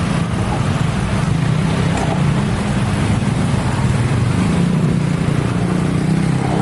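Steady, loud, low rumble of vehicles at a busy railway level crossing, with no single sharp event standing out.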